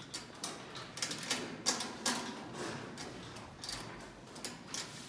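Irregular sharp clicks and light rattles, clustered about one to two seconds in and again near the end, from a knapsack sprayer being worked over a chain-tethered bull.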